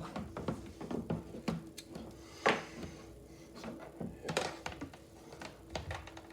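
Irregular clicks and knocks from handling a compact mechanical keyboard and re-plugging its cable, with one louder knock about two and a half seconds in.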